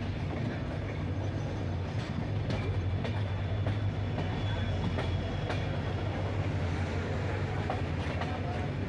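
Devagiri Express passenger coaches running on the track, heard from an open coach door: a steady low rumble of wheels on rails, with a few short sharp clicks from the wheels and track.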